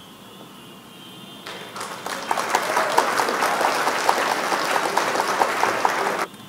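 Applause sound effect: a crowd clapping, swelling in about a second and a half in and cutting off suddenly near the end.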